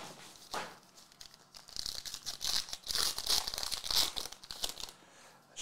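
Foil wrapper of a 2022-23 Origins basketball card pack being torn open and crinkled in the hands. A few sharp crackles come first, then about three seconds of steady crinkling.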